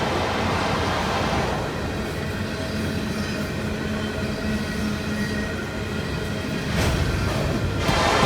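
Freight train rolling by on the rails: a steady rumble and rattle of the cars and wheels, with a faint steady low hum through most of it.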